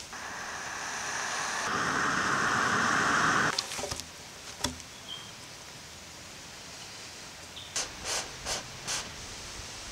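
Air blown through a tube onto glowing coals burning a hole into a log. One long blow swells louder and stops suddenly, a few sharp crackles or knocks follow, then four short puffs of air near the end.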